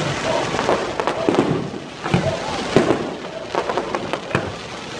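Aerial fireworks bursting overhead: a string of sharp bangs and crackles, irregularly spaced, several in some seconds.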